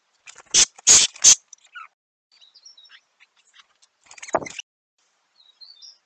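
Eurasian jay's bill knocking against a seed feeder dish as it pecks at the seed: three quick sharp taps about a second in and one more near the end. Faint small-bird chirps come in between.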